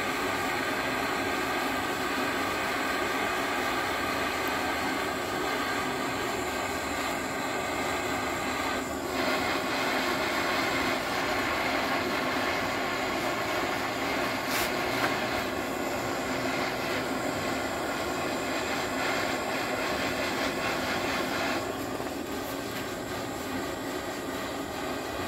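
Handheld butane canister torch burning steadily against a steel motorcycle frame, heating the tube. The flame gets louder about 9 seconds in and drops back about 22 seconds in, with a single click partway through.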